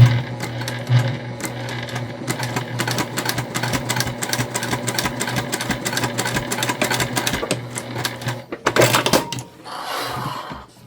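Domestic sewing machine running steadily, its motor humming under a rapid, even ticking of stitches as it sews a seam through the fabric layers and binding. It stops about eight and a half seconds in, followed by a short burst of handling noise.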